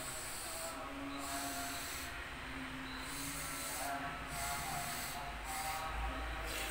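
Noodles being slurped and chewed from a spoon: breathy sucking and hissing through the lips that starts and stops about every second.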